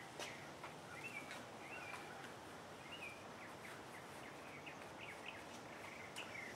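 Small birds chirping faintly in the background, many short rising and falling chirps scattered irregularly, with a few light ticks and rustles as a canvas welding blanket is handled over the part.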